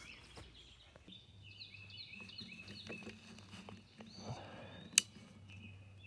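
Small birds chirping in repeated short, high notes over a faint steady low hum, with a single sharp click about five seconds in.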